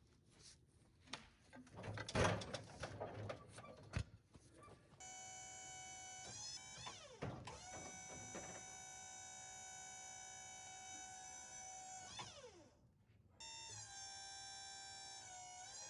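A few clicks and knocks, then a small electric motor on the sawmill whining steadily. It winds down and stops, then starts again at a different pitch about a second later.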